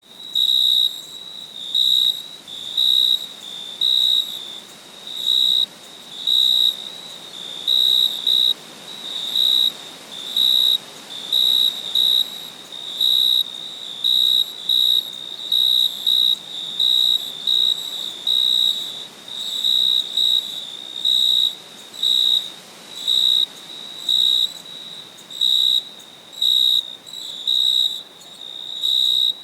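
Crickets chirping at night: a high, shrill chirp repeated evenly, about three chirps every two seconds, over a faint background hiss.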